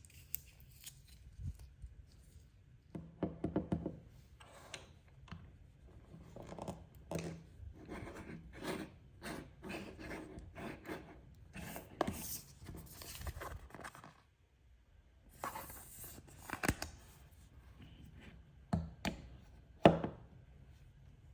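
Toy packaging being handled and opened by hand: a run of short scrapes, rubs and clicks, with a brief pause about two-thirds through and a sharp click near the end.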